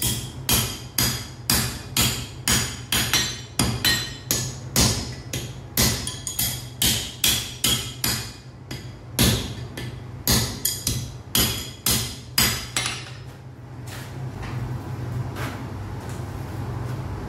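Blacksmith's hammer striking iron on an anvil in a steady rhythm of about two ringing blows a second. The blows stop about 13 seconds in, leaving a steady low hum and rushing noise.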